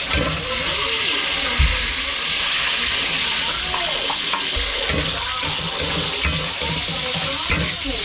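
Garlic sautéing in hot oil in a pan: a steady, even sizzle while it is stirred, with a couple of low thuds from the pan or spoon.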